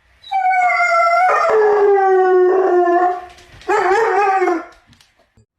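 Dog howling: one long drawn-out howl that sinks slowly in pitch, then a shorter wavering howl about four seconds in.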